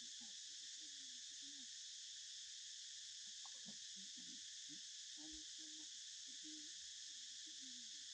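A steady, high-pitched chorus of insects, with faint, short, low sounds scattered through it.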